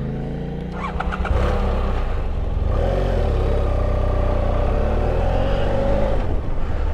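Parallel-twin adventure motorcycle engine running while under way. It picks up about a second in and then holds a fairly steady pitch.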